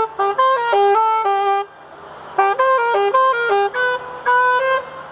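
Solo saxophone playing a melody in short phrases of held and quicker notes, with a brief pause about two seconds in.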